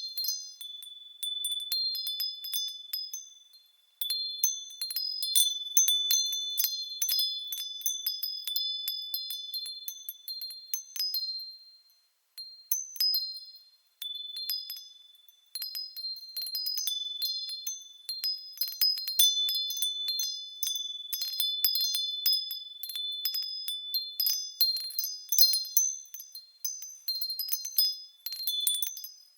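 Japanese fūrin wind chime rung by the wind: irregular clusters of high, bright clinks, each ringing on, with a few brief lulls where it fades almost away.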